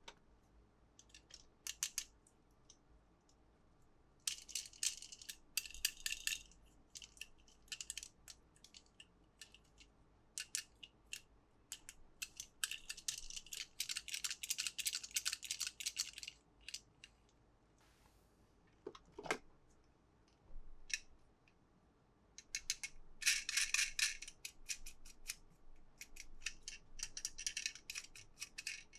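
Toy packaging being handled and opened: many small plastic clicks and taps, with three stretches of crinkling and rattling, and a short squeak about two-thirds of the way in.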